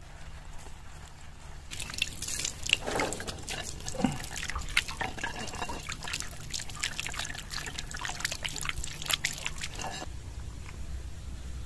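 Liquid splashing and dripping in a dense run of small irregular splashes and clicks, starting about two seconds in and cutting off about ten seconds in.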